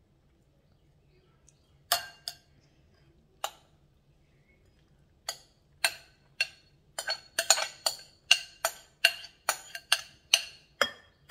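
A spoon striking and scraping a glass mixing bowl, each clink ringing briefly: a few scattered clinks, then a quick run of them, several a second, near the end as the bowl is scraped empty.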